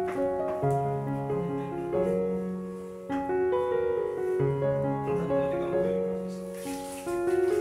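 Background piano music with a gentle melody of held notes over low chords.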